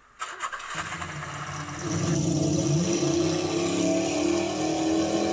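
Car engine running, coming in under a second in, growing louder about two seconds in with a short rise in pitch, then running steadily.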